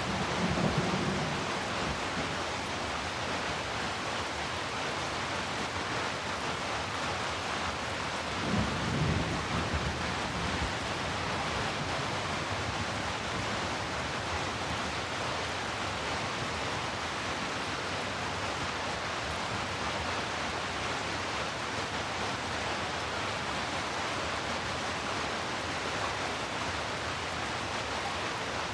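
Heavy rain falling steadily, a dense even hiss, with low thunder rumbles near the start and again about nine seconds in.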